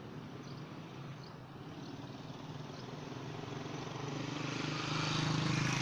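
Motor vehicle engine running steadily, growing louder over the last two seconds as the vehicle comes close and passes, with a rising rush of road noise.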